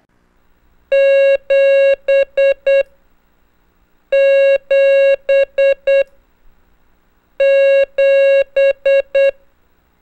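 Morse code practice tone sending the digit seven, dah-dah-dit-dit-dit, three times over. Each time it is two long beeps and three short ones on a single steady, buzzy pitch, with about a second of silence between repeats.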